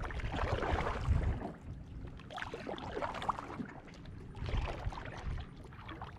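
Water splashing and lapping around a kayak, in three splashy surges about two seconds apart, over a low rumble.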